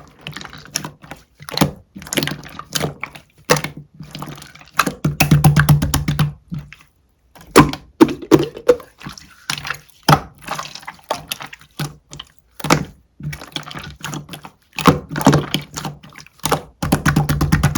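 Clear slime being squished and poked, giving sticky pops and wet crackles. These come in dense rapid runs about five seconds in and again near the end.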